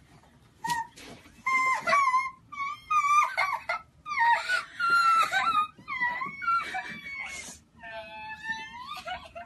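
A young girl's high-pitched excited screams and wailing sobs. She is overcome with joy at being given a kitten. The cries come in repeated bursts of half a second to a second, starting about a second in.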